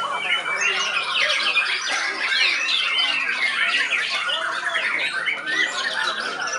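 White-rumped shama singing rapid, sharp phrases over a dense chorus of other caged songbirds, all calling over one another without a break.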